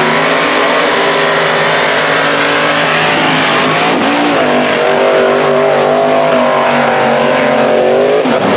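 Mega truck engine running flat out down a dirt racetrack, holding a steady high pitch. About four seconds in there is a sharp break, then the pitch climbs higher and holds before dropping near the end.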